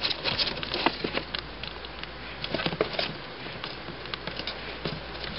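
Light, irregular scratching and tapping of a baby squirrel's claws as it scrambles over a cardboard shoebox and a branch.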